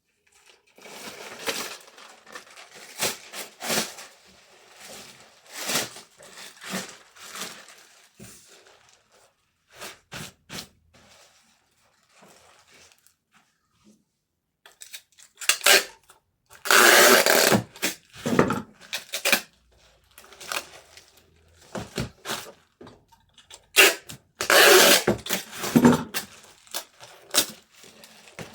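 Hands packing an order: irregular rustling, taps and clicks of boxes and packaging material being handled, with two longer, louder rasping stretches a little past halfway and near the end.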